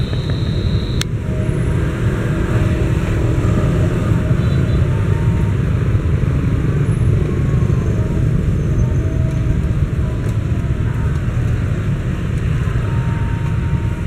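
Steady low rumble of a diesel-hauled fuel tank train rolling slowly along the station tracks.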